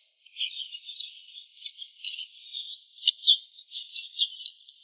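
Birds and insects chirping steadily in a field, with a couple of sharp clicks about three seconds in and again near the end.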